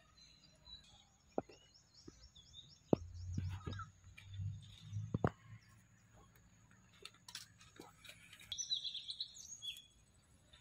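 Faint outdoor ambience: scattered short high chirps, a few sharp clicks and a low rumble in the middle, over a faint steady high-pitched tone.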